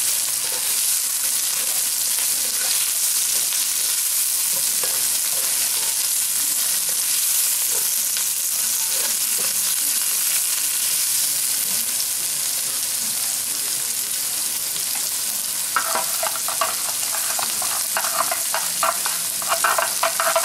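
Chopped onions, curry leaves, mustard, cumin and fennel seeds sizzling steadily as they fry in a nonstick wok, stirred now and then. A run of light clattering comes in the last few seconds.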